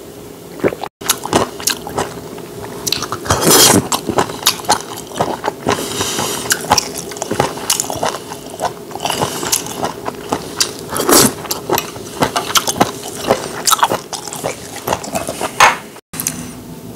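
Close-miked eating sounds: chewing of rice, roasted laver and stir-fried webfoot octopus, with many short clicks and knocks of wooden chopsticks against bowls. There are a few louder bursts about three and a half seconds in and again about eleven seconds in.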